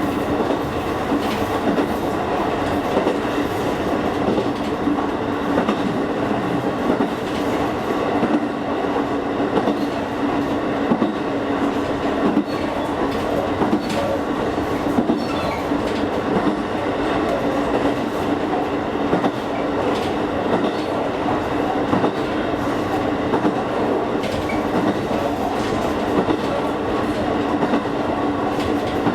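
Electric train running at speed, heard from inside the car: steady rumble with a low hum, and scattered clicks of the wheels over rail joints.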